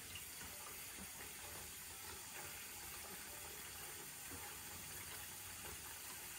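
Faint, steady hiss of a tap running into a bathroom sink.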